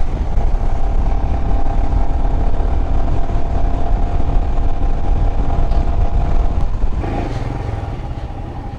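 Royal Enfield Himalayan's 411 cc single-cylinder engine running at a steady cruise, with heavy wind rumble on the microphone. About seven seconds in, the engine note and wind drop away as the bike slows.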